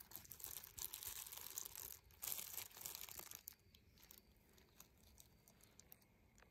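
Faint crinkling of a disposable plastic glove and rustling of raspberry leaves as ripe black raspberries are picked by hand, mostly in the first half, then fading to near silence.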